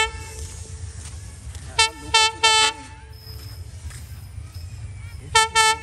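Diesel locomotive horn sounding short toots as the train approaches: three quick blasts about two seconds in, then two more near the end. A low steady rumble runs underneath.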